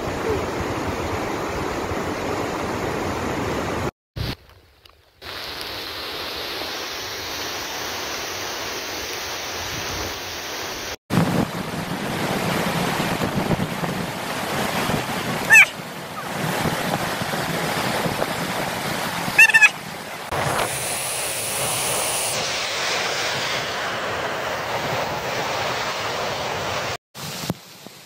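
Waterfall and its river rushing steadily, with wind buffeting the phone microphone; up close, spray from the falls drenches the recorder. Two brief high-pitched sounds stand out around the middle.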